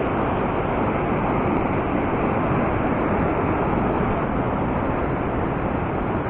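Loud, steady rush of a mountain stream pouring over boulders in white-water cascades.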